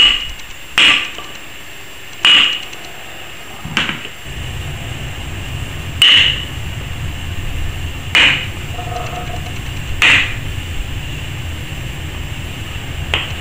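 Hammer blows on a wooden block held against a stuck camshaft bearing cap on a Kawasaki KZ900 cylinder head, knocking it loose. There are about eight sharp strikes, one every second and a half to two seconds.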